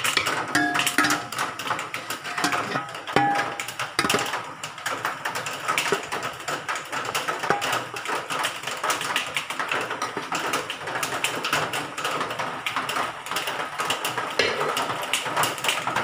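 Metal ladle scooping and scraping cooked biryani rice in an aluminium pot and dropping it onto a stainless steel plate: continuous irregular scraping and clinking, with a few short metallic rings in the first few seconds.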